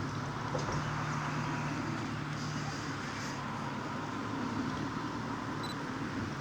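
Steady low outdoor background rumble with a faint hum, and a brief high tone near the end.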